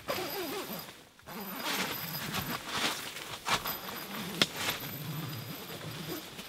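Nylon tent fabric rustling and crinkling as the tent's door is unzipped and pulled open, with a few short sharp scrapes.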